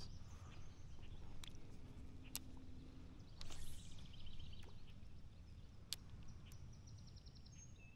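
Quiet open-air ambience with a low rumble, a few light clicks and a brief swish about three and a half seconds in, as a fishing rod and reel are cast. A quick run of faint high chirps comes near the end.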